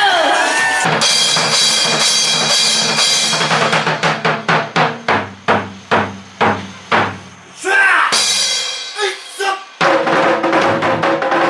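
Loud show music with heavy drums: a dense opening, then separate drum hits about twice a second, and the full music returning near the end.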